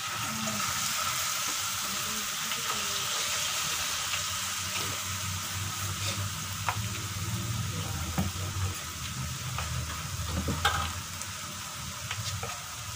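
Peyek batter deep-frying in hot oil in a wok: a steady sizzle, broken by a few sharp clicks and pops, the loudest about three-quarters of the way through.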